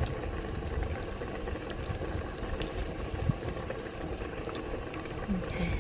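Pot roast's cooking liquid simmering, a steady bubbling with a few small clicks.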